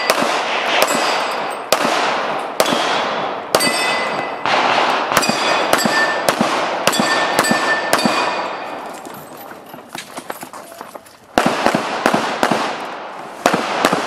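A string of handgun shots, about two a second, each echoing off the range berm, some followed by a metallic ring. About nine seconds in they stop for a couple of seconds, then several more shots come close together.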